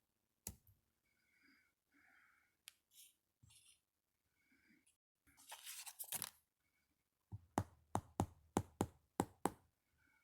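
A soft rustle, then a quick run of about eight sharp taps, roughly four a second, following a single click earlier on.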